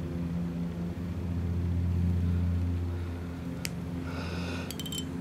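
Steady low machine hum in a workshop, with a single sharp click a little past halfway and a few small tinkling clicks near the end as small parts are worked onto a small-engine carburetor.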